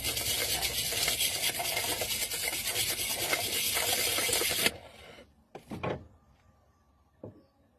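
Rapid rasping scrape, like filing or scrubbing, on the pressure cooker under repair. It stops abruptly a little past halfway, followed by a couple of faint knocks.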